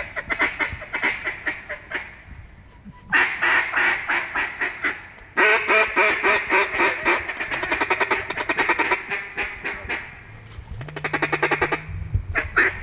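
Cocobolo wooden duck call blown in a fast, pulsing chatter, in several long runs with short breaks between them, calling to ducks in flight.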